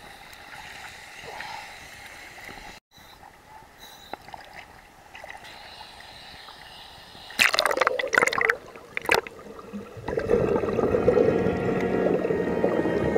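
Sea water lapping and gurgling around a camera held at the surface. About seven seconds in come a few loud splashes as it dips under. After that a steady, louder underwater rush with scuba divers' exhaled bubbles.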